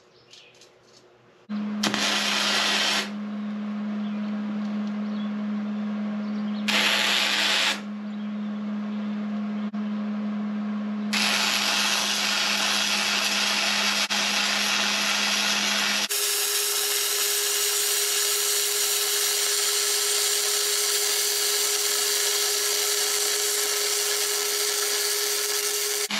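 Hobart Handler 210 MVP welder laying flux-core welds on a steel slat: the arc crackles in two short bursts of about a second, then in longer runs, unbroken through the last ten seconds, over a steady hum.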